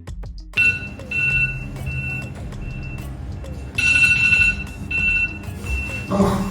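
Repeated electronic beeping: a high steady beep that sounds on and off in uneven pulses, over a low rumble.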